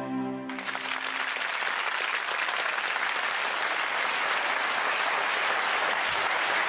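Studio audience applauding. The clapping breaks out about half a second in, over the last held notes of a song as they fade.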